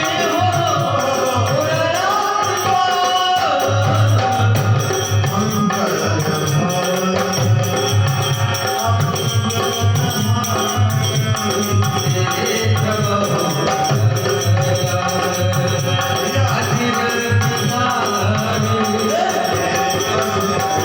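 Dholak played in a steady folk rhythm, deep bass strokes under sharper treble slaps, with jingling percussion and a gliding melody line above it.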